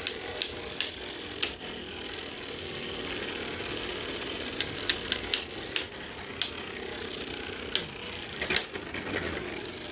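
Irregular sharp plastic clicks and taps as Beyblade parts are handled between battles, with a faint steady background hiss.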